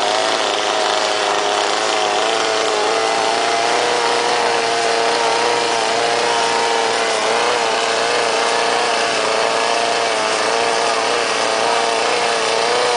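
Chainsaw running at high speed, carving a wooden log into the shape of a bear. Its engine note is loud and steady, with a pitch that wavers slightly throughout.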